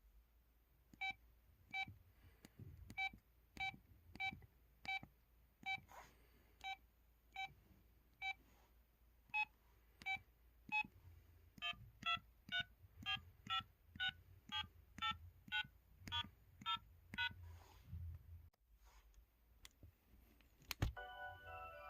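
Keys being pressed one after another on an MS500 mobile phone keypad, each press giving a short electronic beep. The presses come slowly at first, then about two a second, and the beep's pitch changes between groups of keys. A few clicks and one sharper click near the end.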